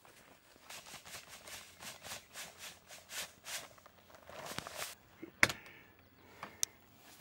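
Rustling footsteps through tall grass and granular deer mineral poured onto a hollowed stump, then a sharp click about five and a half seconds in and a smaller one a second later, from the door latch of a Polaris Ranger XP 1000 UTV being opened.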